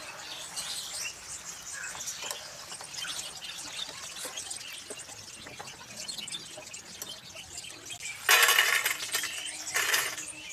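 Potato fingers sizzling and crackling in hot oil in a frying pan, with small clinks of a slotted spoon. About eight seconds in, two louder rattling clatters as the fried potatoes are shaken from a wire strainer onto a steel plate.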